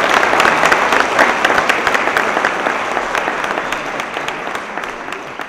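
Audience applauding: dense clapping that slowly thins and grows quieter.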